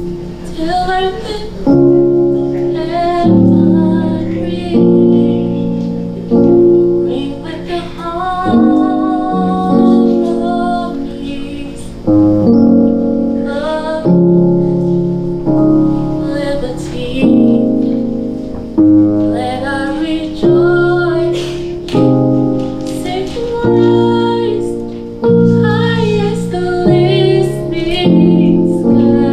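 Slow piano chords, a new one struck about every second and a half, with a woman singing over them.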